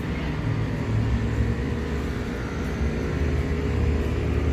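Steady low traffic rumble.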